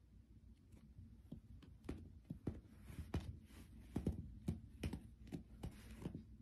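A Manx cat rolling and kicking on carpet: soft, irregular thumps of its paws and body, with brief scratchy rustling of claws on carpet and fabric. The thumps come more often and louder after about two seconds.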